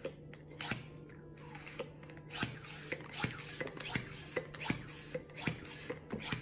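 Plastic hand pump inflating a long twisting balloon: quick, squeaky pump strokes at about two a second as the balloon fills.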